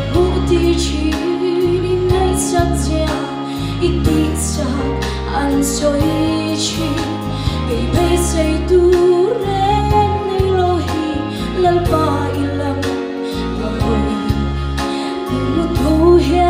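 A woman singing a gospel song solo through a microphone, over instrumental accompaniment with a steady bass line and percussion.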